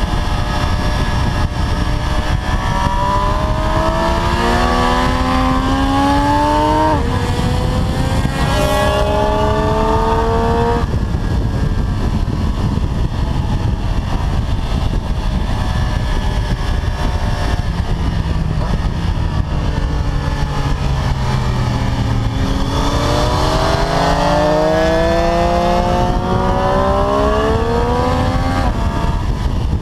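Triumph Street Triple 765 RS's three-cylinder engine accelerating hard through the gears, the revs climbing and dropping back at each upshift, several times in the first ten seconds or so, then holding steadier before a long climb in the second half. Strong wind rush on the bike-mounted microphone throughout.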